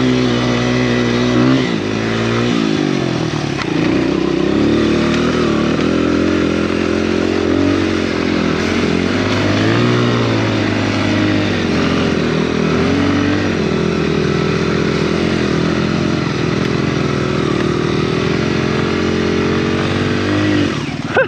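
Honda XR100R dirt bike's small single-cylinder four-stroke engine running under load, its revs rising and falling as the rider works the throttle.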